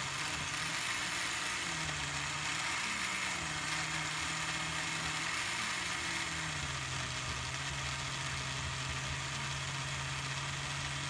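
Countertop blender motor running as it purées a thick sauce: a steady whir whose hum wavers in pitch at first, then drops slightly and holds steady about six and a half seconds in.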